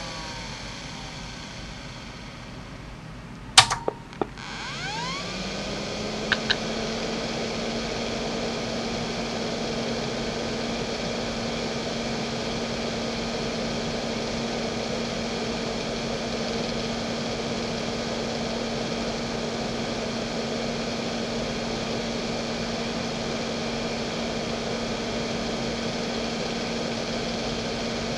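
JVC JDE2042M10-1 2.5-inch hard drive (1992, 3400 rpm) spinning down with a faint falling whine, then a sharp click about three and a half seconds in. The spindle then spins up with a rising whine that settles into a steady quiet hum over a hiss, with a couple of light head clicks about six seconds in.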